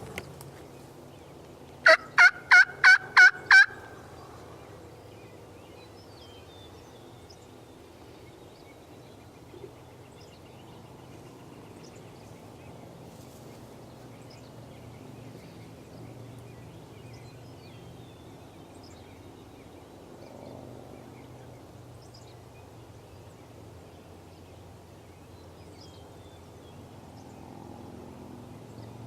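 A series of six loud, evenly spaced turkey yelps, about two seconds in, made on a hunter's turkey call to draw in a gobbler. Faint bird chirps follow.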